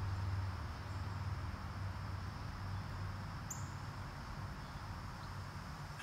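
Summer backyard ambience: a steady high drone of insects over a low steady rumble, with one short high bird chirp about three and a half seconds in.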